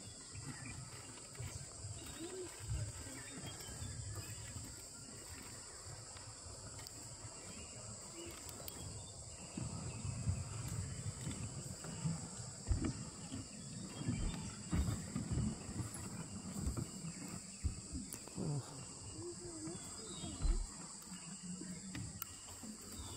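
Steady, high-pitched drone of insects in the forest, with irregular low rumbles and soft thumps that come more often from about ten seconds in.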